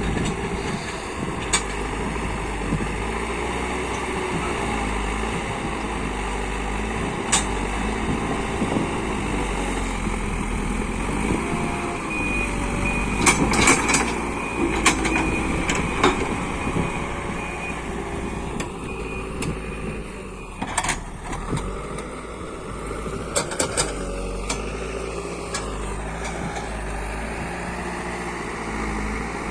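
JCB backhoe loader's diesel engine working under changing load, its pitch rising and falling, with sharp metal clanks from the machine now and then. A high beeping, like a reversing alarm, sounds for a few seconds near the middle.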